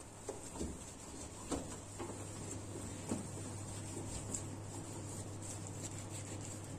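Terry-cloth towel wiping and rubbing across a stainless steel stovetop: faint scrubbing strokes with a few soft knocks, over a steady low hum.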